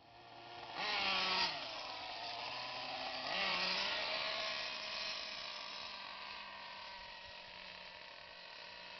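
Radio-controlled model car's motor revving as it drives, with a high whine that swoops in pitch; it surges twice, about a second in and again near three and a half seconds, then slowly fades away.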